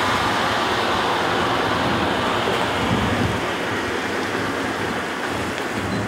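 Heavy-haulage truck with a long multi-axle trailer rolling slowly past: a steady rush of tyre and running noise that fades slightly toward the end.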